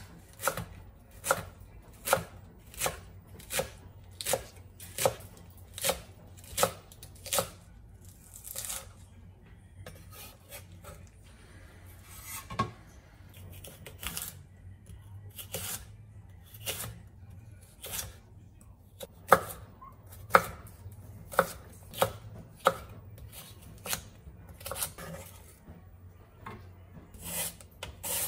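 Wide-bladed kitchen knife slicing leafy greens and cucumber on a wooden cutting board, each cut ending in a sharp knock on the board about once a second. The cuts pause for several seconds midway, then start again.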